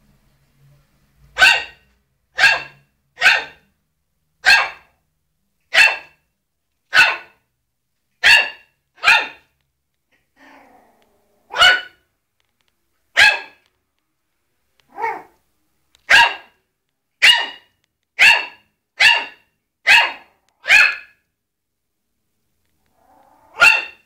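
A small dog yapping in short, high-pitched barks, about eighteen in all, mostly a second or so apart. There is a pause near the middle and another before a last bark at the end.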